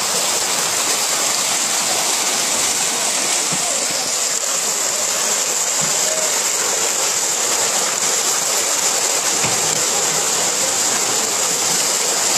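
A feeding frenzy of piranhas thrashing at the surface, the water churning and splashing in a steady, continuous rush.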